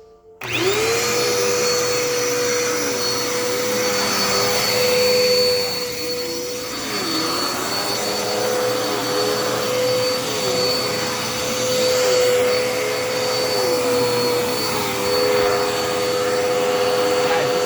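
A Dirt Devil Endura Reach vacuum cleaner switches on suddenly about half a second in and runs steadily with a high whine. Part of its motor tone dips and recovers again and again as it is pushed around.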